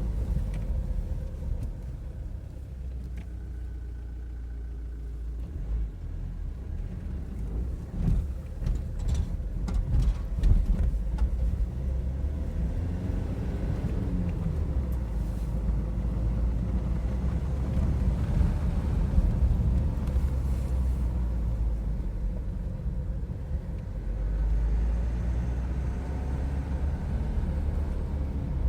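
SsangYong Korando engine running, with its pitch rising and falling as it revs, and a cluster of sharp knocks about a third of the way through. The knock comes under load and on acceleration, and the owner suspects the crankshaft pulley.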